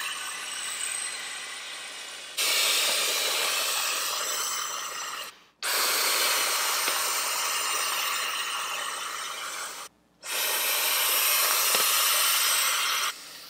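A person blowing by mouth into the valve of an inflatable plastic mallet toy to blow it up: long, steady rushes of breath, broken by short pauses to inhale about five and ten seconds in.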